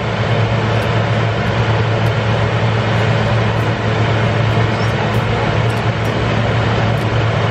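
A steady, loud low hum under a constant rushing noise, unchanging throughout, like a running machine or fan.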